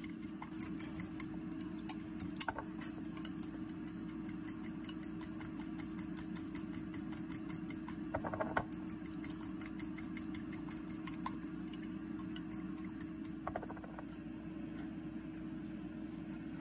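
A steady machine hum, with a metal spoon clinking and scraping against a glass bowl a few times as a thick creamy sauce is stirred.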